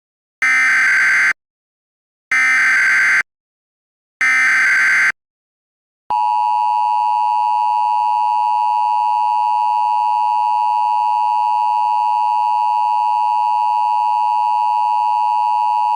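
Emergency Alert System alert tones: three identical data bursts of SAME header code, each just under a second long and about two seconds apart, followed about six seconds in by the steady two-tone EAS attention signal, which sounds for about ten seconds. It marks the start of a new emergency alert broadcast.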